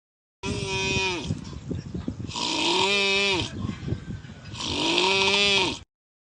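A person snoring loudly: three long snores about two seconds apart, each carrying a humming tone that rises and then falls.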